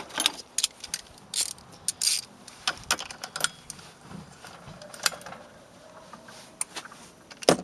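Irregular metallic clicks and clinks of hand tools on the snowmobile's primary drive clutch bolt as it is tightened down, with a sharp clink at the start and a louder one near the end.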